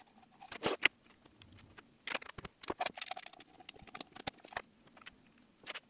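Scattered light clicks, taps and short scrapes of small screws and a 3D-printed plastic turntable base being handled while a lever-arm microswitch is bolted on.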